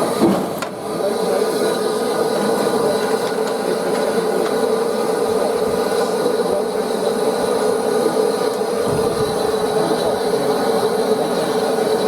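Steady running and rubbing noise with a hum of several held tones from the turntable turning steam locomotive 34046 Braunton, a rebuilt Bulleid West Country class pacific, with a brief knock just after the start.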